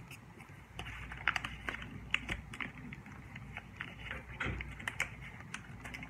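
Origami paper crinkling and crackling under the fingers as it is folded and creased: irregular small ticks and rustles, several to the second.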